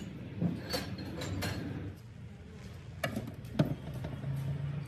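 A few sharp metallic clicks and knocks from parts of a stripped Toyota 1KZ-TE diesel engine block being handled, with a low steady hum in the last second.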